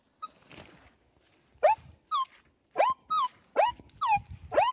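Kvazar ARM metal detector sounding its target tones as the coil is swept back and forth over buried coins: short chirps about two a second from near two seconds in, one gliding up in pitch, the next gliding down. They are the signals of a scatter of late-Soviet coins, read as a 20-kopeck and a 5-kopeck piece.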